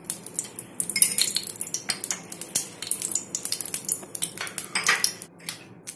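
A metal spoon clinking and scraping against a small glass bowl as cooking oil is spooned out into a frying pan: a run of quick, irregular light taps and clicks that thins out near the end.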